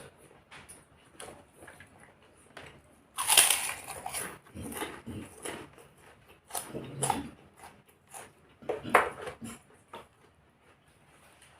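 Close-up eating sounds: a person biting and chewing crunchy food in irregular crackly crunches, the loudest about three seconds in.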